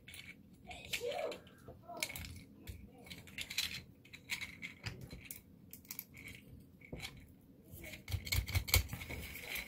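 Small 3D-printed plastic parts clicking, rattling and scraping as the jointed head and limbs of a print-in-place reindeer toy are worked loose by hand, straight off the print bed. A few duller knocks come near the end.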